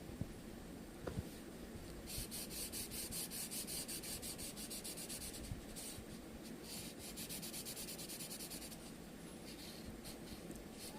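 Drawing on paper: rapid back-and-forth scratching strokes of a drawing tool, in two runs of a few seconds each, with a couple of light taps about a second in.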